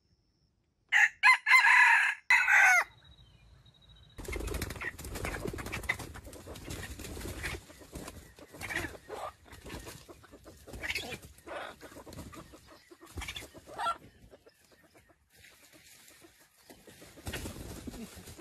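Red junglefowl rooster crowing once, a loud short crow about a second in. It is followed by rustling and scratching in dry leaf litter, with occasional soft clucks.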